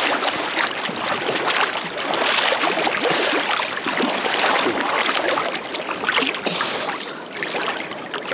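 Sea water splashing and sloshing right at the surface as a swimmer strokes through it: a dense, continuous wash of many small splashes, dipping a little near the end.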